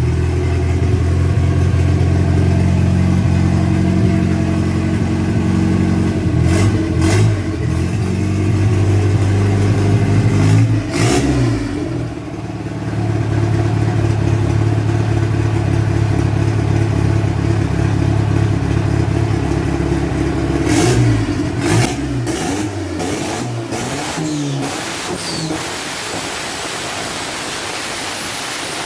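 Turbocharged VW AP four-cylinder engine revved and held high twice. Each time the throttle is released, sharp exhaust pops crackle as the revs fall, a few about six seconds in, one near eleven seconds and a cluster from about twenty-one seconds on as the engine drops back toward idle.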